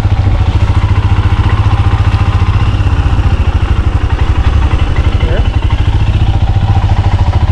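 Vehicle engine running steadily under way, a loud fast even throb, with wind and road noise over it.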